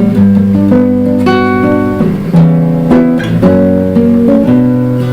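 Acoustic guitar strumming chords in the instrumental introduction of an Argentine folk zamba, with no singing yet.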